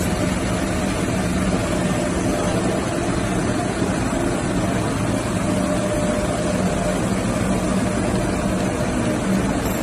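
Textile spinning machinery running with a steady, even drone and a constant low hum.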